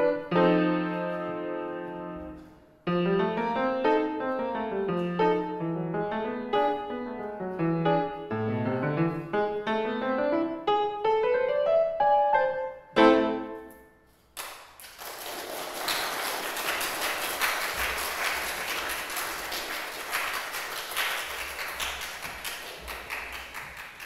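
Grand piano played solo: running figures and chords that end on a loud final chord just past halfway, left to ring out. Then an audience applauds for about nine seconds.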